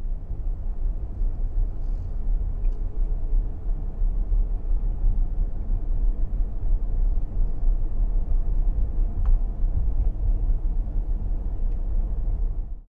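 Outdoor street ambience: a steady low rumble with no distinct events.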